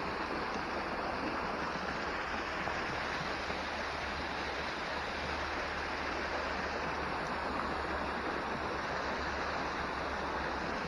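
Water gushing steadily through the gaps in a canal lock's wooden gates and splashing down into the lock chamber.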